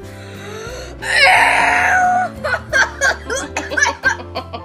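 Background music with a steady bass line. About a second in, a loud shriek of disgust at the century egg's smell lasting about a second, followed by rapid bursts of laughter and squeals.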